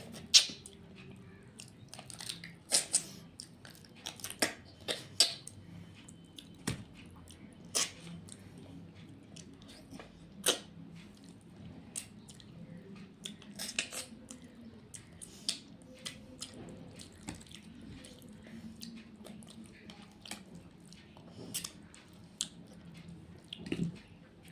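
A person eating close to the microphone: irregular wet chewing and lip-smacking clicks, a few of them sharp, over a faint steady low hum.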